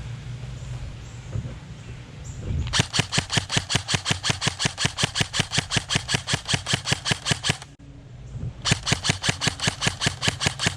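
G&G M4 CQB airsoft electric rifle firing on full auto: a long burst of about five seconds starting a few seconds in, a brief pause, then a second burst. The shots come as sharp cracks in a fast, steady rhythm.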